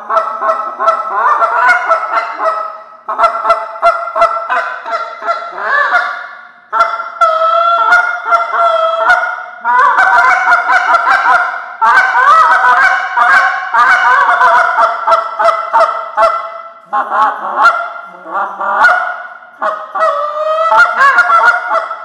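Short-reed Canada goose call blown by hand in fast runs of honking notes that break sharply in pitch, with brief pauses every few seconds.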